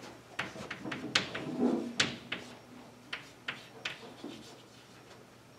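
Chalk writing on a blackboard: irregular sharp taps and short scratches of the chalk stick, thickest in the first four seconds, then thinning out. A short low hum sounds about one and a half seconds in.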